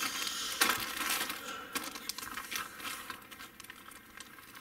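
Clear plastic bags holding model-kit sprues crinkling and rustling as they are handled and shifted about. Busiest in the first two seconds, then lighter, scattered rustles.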